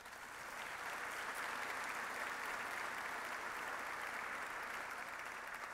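Audience applause that swells over the first second, holds steady, then eases off near the end.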